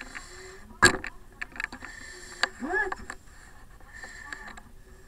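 Firefighter breathing through an SCBA mask, with the hiss of the air supply and short rising-and-falling tones on the breaths, among small clicks and knocks of gear. A sharp knock about a second in is the loudest sound.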